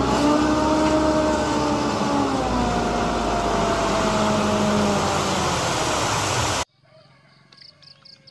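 Dump truck engine running at raised revs to power the hydraulic hoist as the tipper bed lifts and a load of sand slides out. A steady engine drone with several pitched tones that dip slightly partway through, cutting off suddenly about six and a half seconds in.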